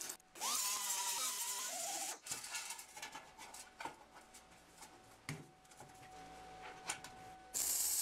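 A workshop power tool spins up and runs for about two seconds, then scattered clicks and knocks of tools and metal parts being handled, with a faint steady hum underneath.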